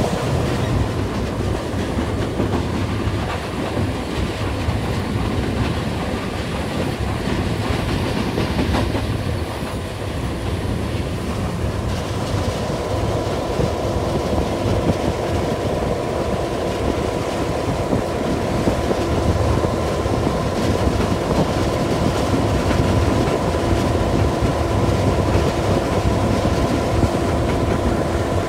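GM-EMD diesel locomotive of 1435 kW running along the line: steady engine sound with the wheels clattering over the rails. A steady whine grows clearer about twelve seconds in.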